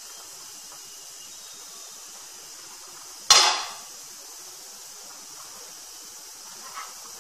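A metal pot lid clanks once, sharp and briefly ringing, about three seconds in, as it is taken off the pan and set down, over a faint steady hiss. Near the end a spatula scrapes faintly as cooked millet rice is stirred in the non-stick pan.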